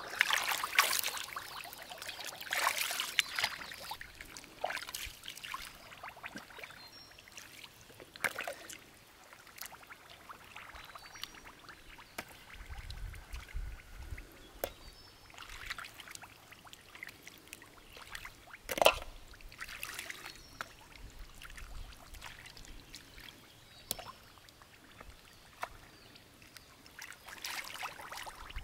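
Hands splashing and sloshing in shallow muddy water while digging freshwater mussels out of the mud, with scattered sharp clicks of shells knocking into the metal basin; one louder knock about two-thirds of the way through.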